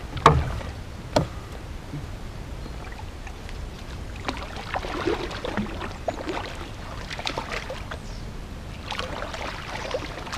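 Two sharp knocks about a second apart at the start. After that, a hooked common carp thrashes and splashes at the water's surface as it is drawn in toward the landing net.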